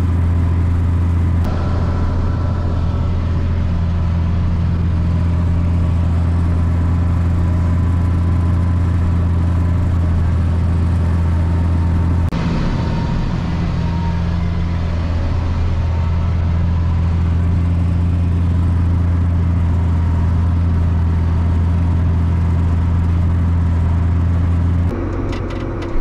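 Tractor engine running steadily at working speed, driving a bush hog rotary cutter: a loud, even low drone whose tone shifts slightly twice.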